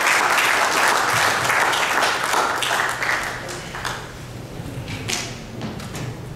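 Audience applauding, dying away about four seconds in, followed by a few light knocks.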